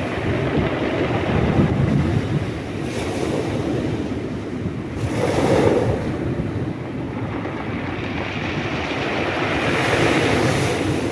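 Sea waves breaking and washing up the shore, swelling and falling back about every four to five seconds, with some wind rumble on the microphone.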